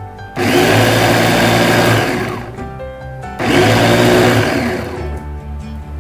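Small electric food chopper run in two pulses, about two seconds and then about one second, its motor whirring down in pitch after each, as it chops chili peppers in a glass bowl.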